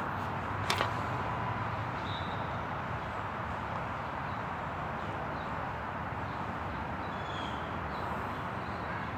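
Steady outdoor city background noise, with a sharp click shortly after the start and a few faint, short high chirps.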